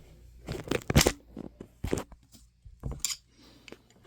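Hard objects being handled and knocked together: a run of sharp clicks and clatters, loudest about a second in, with a few more near two and three seconds in, over a steady low hum.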